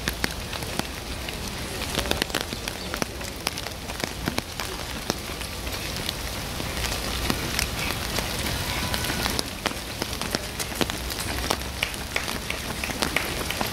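Rain falling: a steady hiss with many scattered sharp ticks of drops striking close by.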